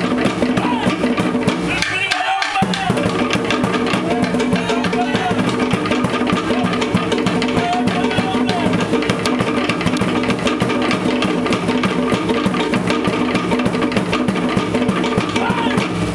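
Live Cook Islands dance music: fast, dense drumming over sustained pitched tones. The low drums cut out briefly about two seconds in.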